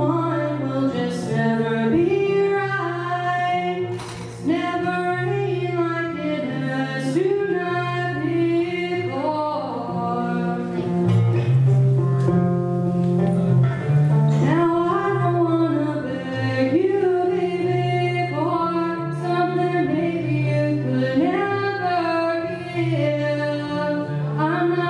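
A girl's voice singing a slow pop song into a microphone, in phrases with gliding pitch, over sustained low backing chords.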